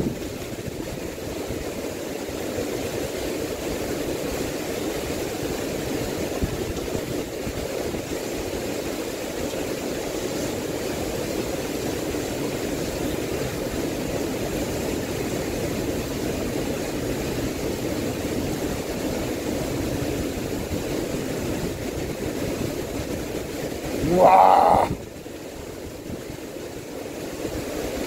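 Steady rushing of typhoon wind and rain buffeting the microphone. Near the end comes a man's short rising exclamation, and the rushing briefly drops.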